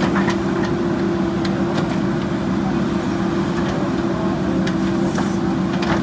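JCB 3DX Super backhoe loader's diesel engine running at a steady pitch while the backhoe arm digs, with scattered short clicks and knocks.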